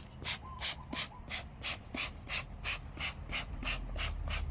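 Quick, regular hissing spray bursts, about four or five a second, from a sprayer wetting the tape recorder's circuit cards so the dust and grime soften. A low steady hum runs underneath.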